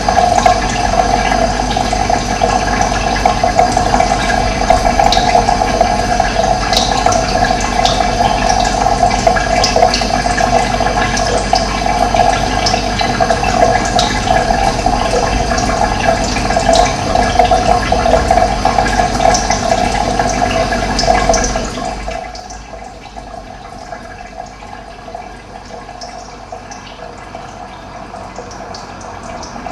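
Steady rush of running water with short high chirps over it; about 22 seconds in it drops abruptly to a much quieter, thinner water sound.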